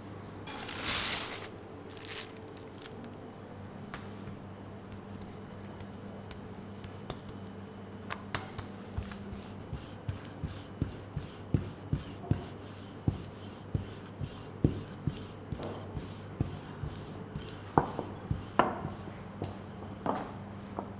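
Short hiss about a second in, then repeated sharp knocks about twice a second from about eight seconds in, growing louder toward the end, like hand work on a board in a food kitchen, with a steady low hum beneath.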